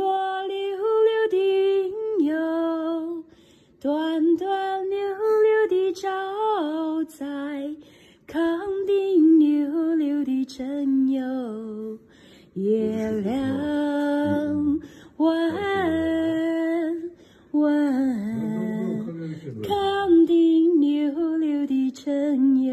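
A woman singing a song unaccompanied, in sung phrases with held notes and short breaks between them.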